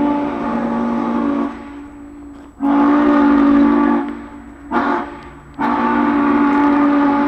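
Norfolk & Western 611 steam locomotive's chime whistle sounding several tones together in four blasts: long, long, short, long. This is the grade-crossing signal.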